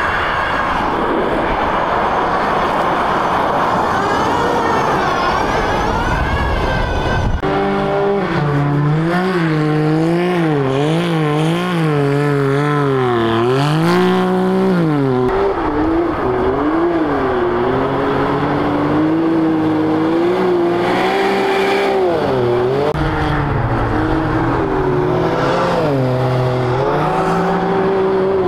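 For about the first seven seconds, an electric rallycross car sliding on snow: a hiss of tyres and thrown snow with a faint rising motor whine. Then, from an abrupt cut, a side-by-side UTV's engine revving up and down over and over as it drifts across the ice.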